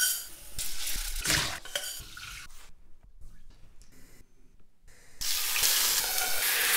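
Water running and rice being poured into a steel pot at a kitchen sink, a loud hiss that dies down a little under three seconds in. About five seconds in, a second loud hiss starts: chicken sizzling in a frying pan.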